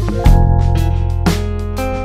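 Background instrumental music with guitar and a steady beat.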